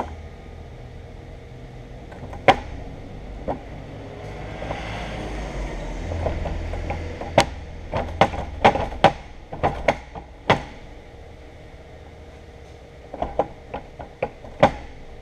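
Cast-iron milling machine parts knocking and clinking on a steel welding table as they are handled, with a stretch of scraping about halfway and a quick run of sharp metal knocks just after. A steady low hum runs underneath.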